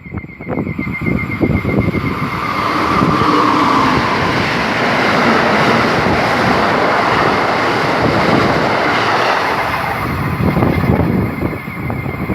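A train passing through the station at speed: a steady rush of wheel and air noise that builds over about two seconds and fades near the end. Wind buffets the microphone before and after it.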